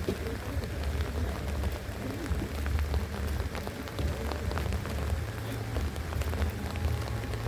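Steady rain falling, with many separate drops ticking on hard surfaces over a constant low rumble.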